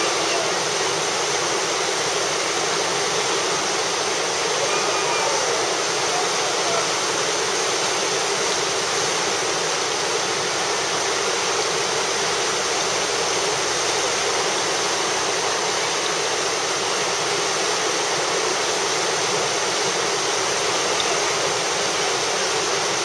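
Whitewater of a river rapid rushing steadily: a loud, even roar of churning water with no breaks.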